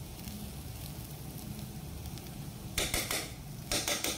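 Elephant foot yam pieces frying in oil in a pan, with two short scraping bursts about three and four seconds in as the pan is stirred.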